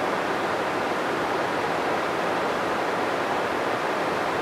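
Steady rush of flowing river water, an even noise that holds level throughout.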